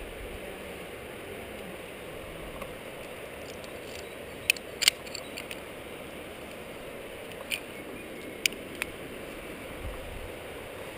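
Metal climbing gear clinking: about half a dozen sharp clicks of carabiners and quickdraws, a cluster in the middle and a few more shortly after, over a steady low hiss.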